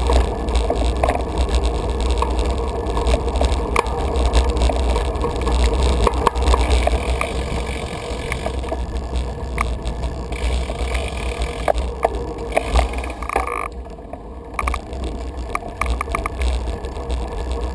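Bicycle riding over brick and stone paving: wind buffeting the camera's microphone, with tyre noise and frequent small rattling clicks from the bike.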